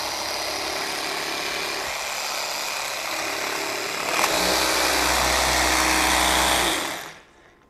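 Festool PSC 420 Carvex 18V brushless cordless jigsaw running with its blade stroking, pushed down onto its clear plastic splinter guard so the blade cuts the guard's slot to fit. The sound gets louder and heavier about four seconds in as the blade bites into the guard, then the saw stops near the end.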